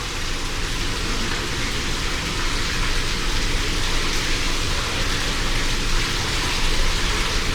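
Aquarium tank water running in a steady rush, likely from the filtration and circulation, with a low hum beneath.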